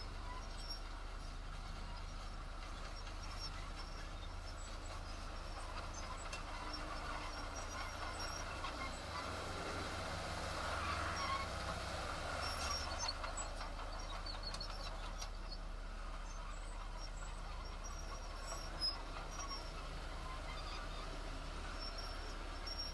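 Diesel engine of heavy earthmoving machinery running steadily, growing louder about ten to thirteen seconds in, with faint high chirps over it.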